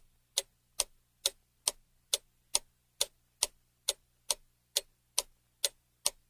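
Clock ticking sound effect: sharp, evenly spaced ticks, a little more than two a second.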